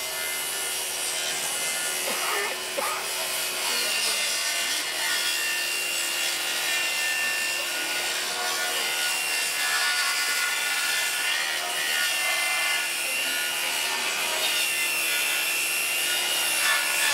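A saw cutting through wood: a steady rasping run with a faint steady whine under it.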